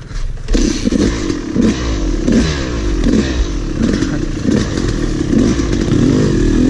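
Two-stroke Yamaha YZ250 dirt bike engine, close up, coming on loud about half a second in. The throttle is blipped over and over as the bike picks its way up a rough trail, so the revs keep rising and falling.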